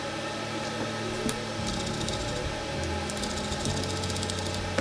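A steady electrical hum from bench equipment, with a quick run of light, fine scratching ticks in the middle as a small brush works over the motherboard's surface.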